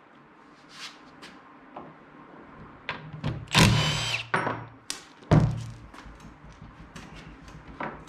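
A power driver spins out the seat-back bolts in short bursts. The longest, about three and a half seconds in, is a brief rising whine, and a second sharp burst follows about two seconds later. Scattered clicks and clanks of metal seat parts and tools are heard between them.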